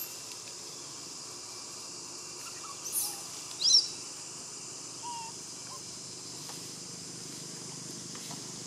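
Steady high insect drone, with two short, sharp, high-pitched squeaks about three seconds in.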